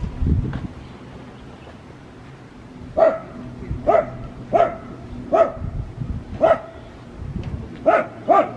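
A dog barking: a run of about seven short barks at uneven intervals, starting about three seconds in after a pause.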